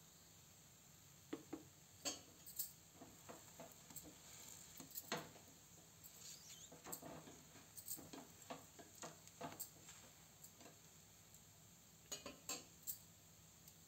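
Faint scattered clicks and scrapes of a flat spatula against a non-stick pan and the moong dal cheela cooking in it, over a low steady background.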